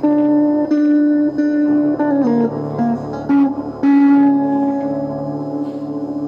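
Live instrumental music: a slow melody of single held notes changing every half second or so, the last note sustained for over two seconds.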